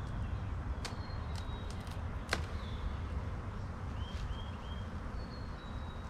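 A few sharp clicks and knocks from beehive parts being handled, the loudest about two seconds in, over a steady low rumble. Small birds chirp, with three short chirps about four seconds in.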